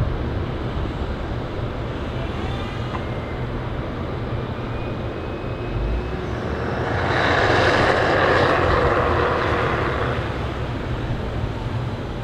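Volvo FH13 540 truck's diesel engine running steadily while its container is tipped to unload sawdust. A rushing swell of sliding sawdust builds about seven seconds in, peaks, and fades out about three seconds later.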